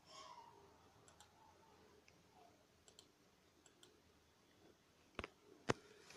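Computer mouse button clicked twice, sharply, near the end, the second click louder, against a near-silent room; a few faint ticks come before.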